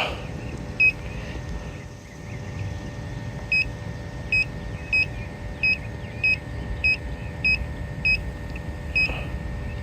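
Short high electronic beeps, about one every 0.6 seconds after a single early one, over a steady low hum inside a car.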